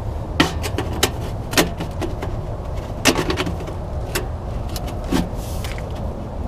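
Sheet-metal stovepipe sections clanking and scraping as they are pushed together and fitted, with about six sharp knocks spread through, over a steady low rumble.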